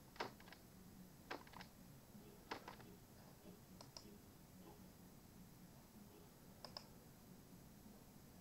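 Computer mouse clicking: five short groups of faint, sharp clicks, mostly in pairs, spread over the first seven seconds, with a faint low hum underneath.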